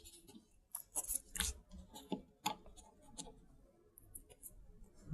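Scattered light clicks and taps of small plastic and metal RC differential parts, the gears and shaft, being handled and checked by hand.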